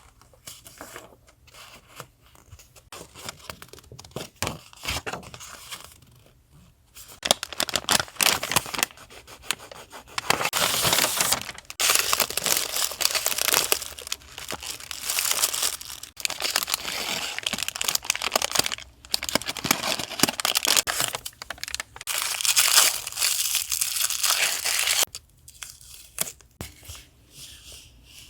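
Packaging and paper being handled, torn and crinkled by hand. A few light handling noises come first; after about seven seconds a long stretch of loud tearing and crinkling starts, which stops a few seconds before the end.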